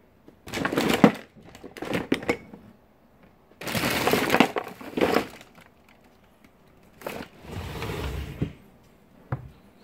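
Close rustling and knocking noises right at a phone's microphone, in four bursts of about one to two seconds with short quiet gaps, and a single click near the end.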